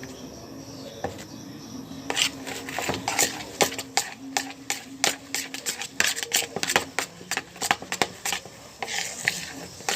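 Stiff, set fluffy slime being mixed and worked, making a long run of irregular sharp clicks and pops from about two seconds in, over a faint steady hum.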